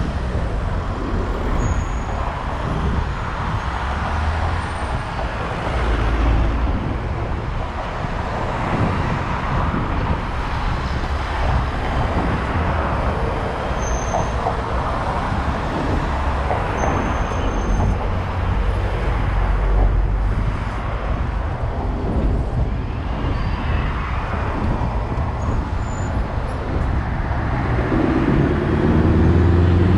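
City street traffic: a steady wash of passing cars with low rumble. Near the end a louder engine passes close.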